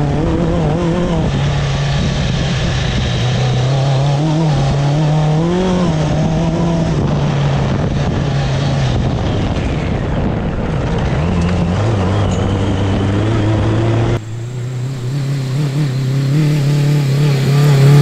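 BMW K100 1000cc inline-four engine of a trophy kart worked hard on a lap, its note rising and falling with the throttle, heard from on board. About 14 seconds in the sound switches to trackside, and the engine gets louder as the kart comes past.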